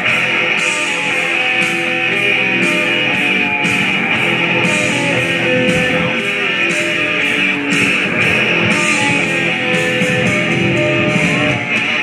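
Background rock music led by guitar, running at an even level with a steady beat.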